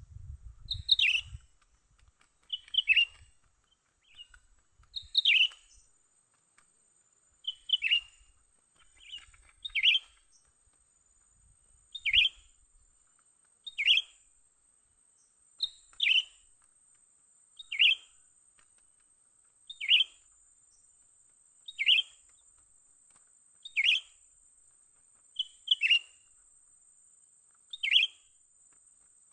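Cucak ranting call: a short, sharp, sweeping note repeated very evenly about every two seconds, now and then as a quick double. A faint steady high tone runs underneath.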